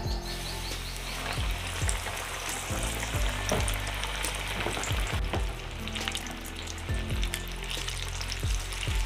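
Flour-coated chicken pieces sizzling and crackling as they deep-fry in hot oil in a deep pan.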